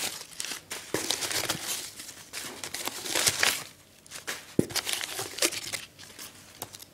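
Crumpled newspaper and brown kraft packing paper rustling and crinkling in irregular bursts as it is pulled out of a cardboard box by hand, with a few sharp knocks, the loudest about four and a half seconds in.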